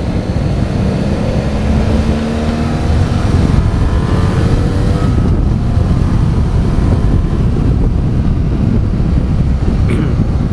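BMW F800GS parallel-twin motorcycle engine running under way, its note climbing over the first few seconds, with wind rushing over the microphone.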